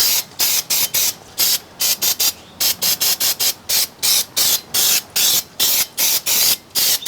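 Aerosol brake and parts cleaner sprayed in quick short bursts, about three hissing squirts a second, cleaning the newly fitted rear brake caliper and rotor.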